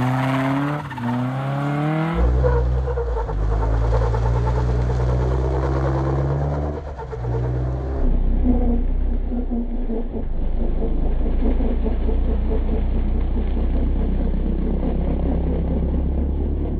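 Nissan 240SX drift car's engine revving up and down hard while the car drifts, over a heavy low rumble, changing abruptly about two and eight seconds in. The car's rear end is hopping, which the owner puts down to play in the worn rear bushings.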